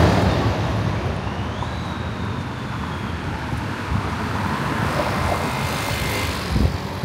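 Street traffic noise: a passing vehicle, loudest at the start and fading over the next few seconds, with a short thump near the end.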